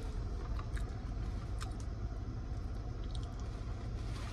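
Steady low rumble inside a car cabin, with a few small clicks and crunches from handling and biting french fries.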